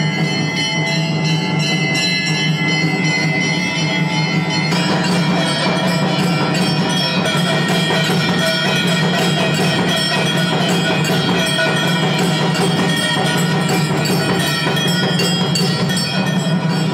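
Temple bells ringing continuously with percussion during an aarti, the ringing turning fuller and denser about five seconds in.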